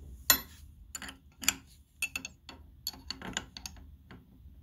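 A string of irregular sharp clicks and light metal knocks as wrenches are fitted onto the router's collet nut to change the CNC bit. The loudest click comes about a third of a second in.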